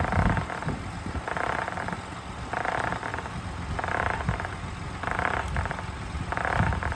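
Vehicle tyre making a repeating abnormal noise: a short burst about every second and a quarter, six times, at an even pace. The tyre is not rubbing on anything and the noise is not from the drivetrain.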